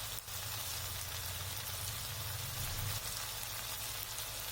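Thick chicken gravy masala with cashew paste sizzling in a pan: a steady hiss, with a low hum underneath.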